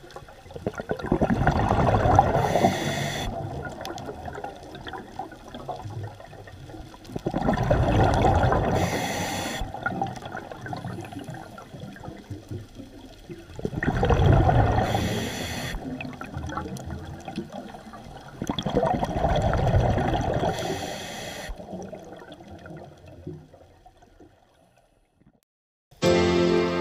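Underwater sound of a scuba diver breathing through a regulator: four swells of bubbling about six seconds apart, each ending in a brief hiss, fading out near the end. Piano music comes in at the very end.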